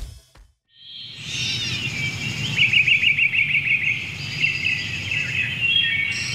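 Birds chirping and twittering, with a quick trill about two and a half seconds in, over a steady low outdoor rumble. The sound starts about a second in, after a short gap.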